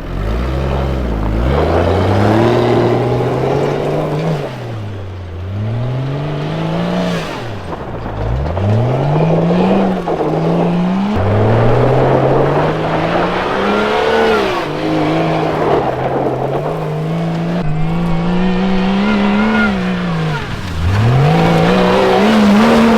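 Supercharged 1992 Jeep Cherokee engine revving hard under throttle, its pitch climbing and then dropping away several times over as it is driven hard.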